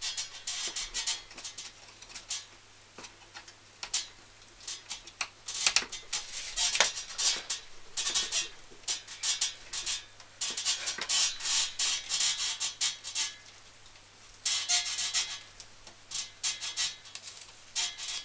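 Hands handling PC power cabling and plastic parts inside a computer case: irregular runs of clicking, rattling and rustling, with short pauses between.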